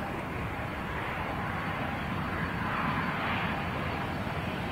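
Boeing 757 jet engine noise as the aircraft comes in to land: a steady rushing sound that swells briefly about three seconds in.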